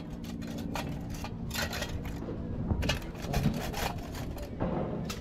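Handling noise: irregular rustling and light clicks, over a low steady hum that fades after about two seconds.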